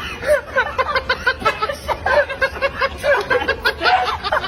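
High-pitched, rapid laughter: a fast string of short snickering bursts, several a second.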